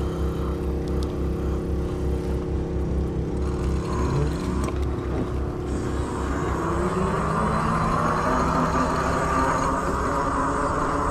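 Ariel Rider X-Class electric bike under way, its electric motor whining with road noise underneath. About four seconds in, the motor's pitch starts to rise as it speeds up, and the whine grows louder after that.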